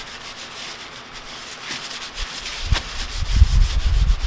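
Cleaning wipe scrubbed back and forth over an aluminium engine case cover, getting louder and heavier about halfway through.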